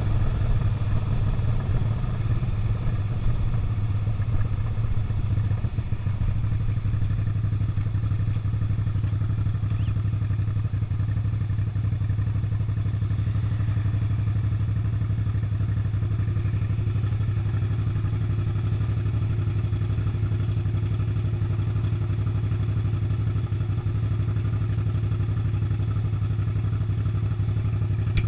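Suzuki SV650's 90-degree V-twin engine running with a steady low note. It is a little uneven for the first few seconds, then holds even.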